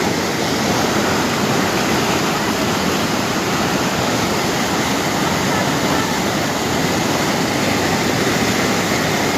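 Fast-flowing floodwater rushing in a steady, unbroken roar.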